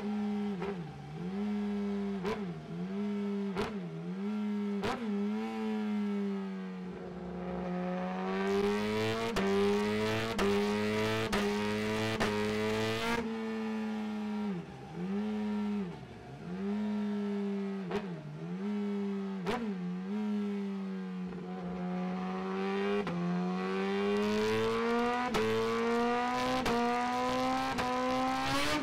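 Suzuki GSX-R1000 inline-four superbike engine, with a Yoshimura titanium exhaust, running at steady revs on a dyno with quick repeated dips in pitch as the throttle is briefly closed. Twice it climbs steadily in revs; the first climb falls away suddenly.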